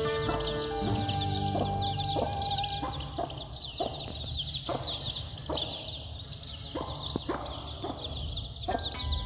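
A brood of young chicks peeping continuously, many short high chirps overlapping. From about three seconds in, a broody hen clucks low and short, roughly once a second.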